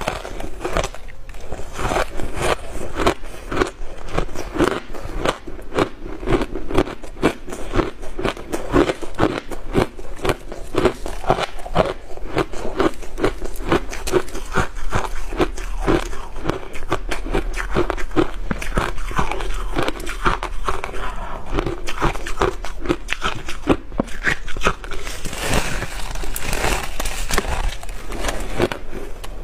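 Biting and chewing a slab of refrozen shaved ice: dense, continuous crunching and crackling of ice between the teeth.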